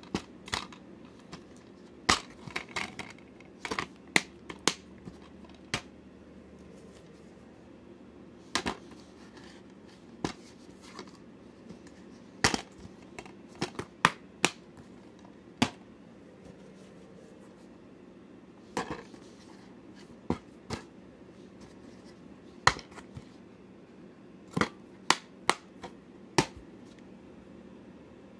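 Plastic DVD cases being handled and shown: irregular sharp clicks and knocks, sometimes two or three close together, with gaps of a second or more between, over a faint steady hum.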